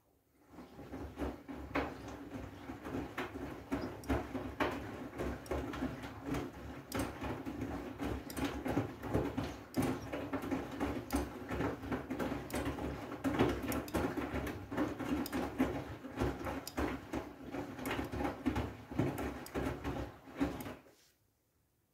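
Front-loading washing machine drum turning in the wash, clothes and water sloshing and splashing against the door glass over a steady motor hum. It starts about half a second in and stops about a second before the end, the drum's pause between tumbling turns.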